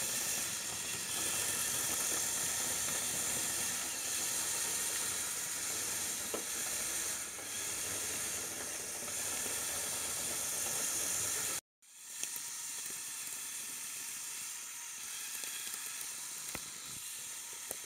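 Lego Technic tracked vehicle driving, its four Power Functions XL motors and tracks making a steady hissing whir. It breaks off suddenly about two-thirds through, and a quieter steady hiss follows.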